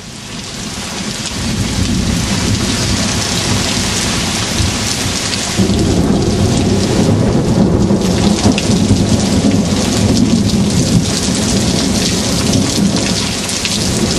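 Heavy rain falling steadily, with a low thunder rumble that grows louder about five and a half seconds in and keeps rolling.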